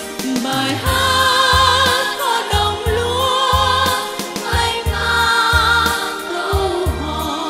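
A woman singing long held notes with vibrato, joined by a children's choir, over a backing track with a steady bass beat.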